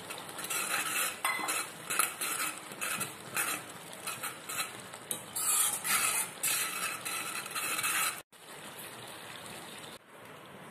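A spoon stirring and scraping in a kadai of simmering tamarind broth as ground roasted spice powder is mixed into pepper kuzhambu, in irregular strokes. It stops abruptly about eight seconds in, leaving a faint steady hiss.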